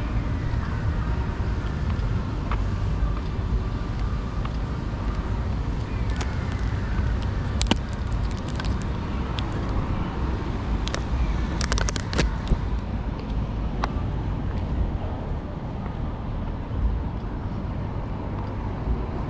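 Road traffic going by: a steady rumble of passing cars, with a few sharp clicks about eight seconds in and again around twelve seconds in.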